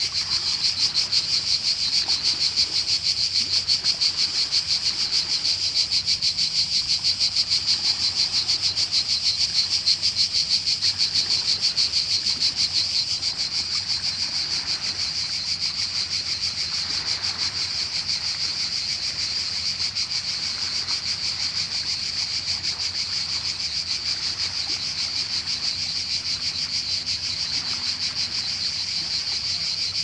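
Cicadas singing in a steady, high, rapidly pulsing buzz, a little louder in the first half.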